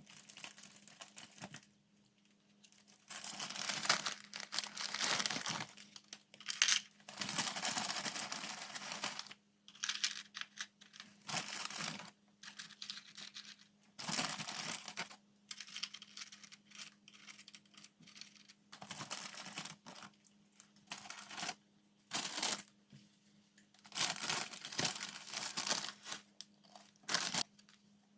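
Food packaging being handled: irregular crinkling and tearing in stretches of a second or two, with small clicks and knocks in between, over a faint steady hum.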